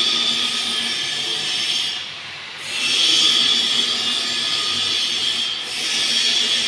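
A power tool running with a steady high-pitched whine and hiss, easing off for a moment about two seconds in before picking up again.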